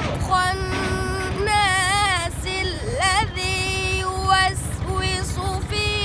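A boy's voice chanting Qur'an recitation in the melodic tajwid style, with long held notes and wavering ornaments and a glide upward about halfway through. A steady low rumble runs underneath.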